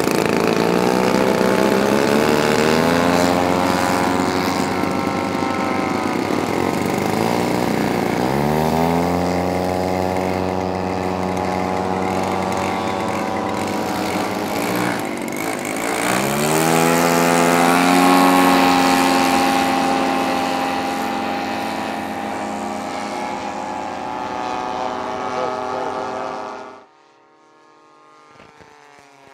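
RC model airplane engine in flight, its pitch sweeping up sharply three times as the throttle opens and then holding. Near the end it cuts off abruptly, leaving a much fainter engine sound.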